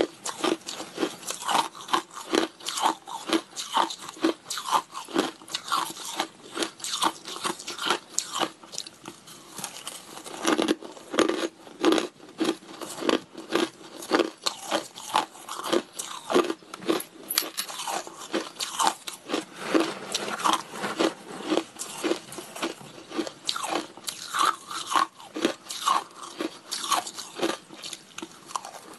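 A person chewing a mouthful of shaved and crushed ice: a steady run of crisp crunches, several a second.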